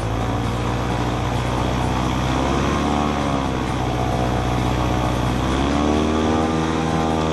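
Airboat's engine and air propeller running at speed, the engine note rising and falling as the throttle changes, about three seconds in and again near the end.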